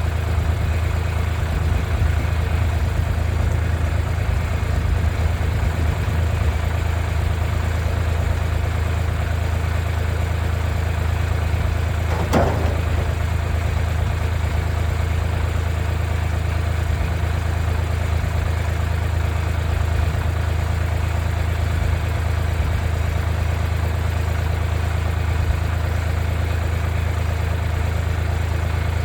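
Diesel tractor engine idling steadily, with one short knock about twelve seconds in.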